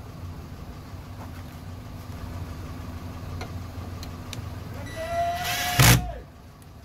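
Cordless drill-driver motor whining for about a second near the end as it drives a screw into a car door's plastic trim panel, ending in a loud knock. A steady low hum and a few light clicks lie underneath.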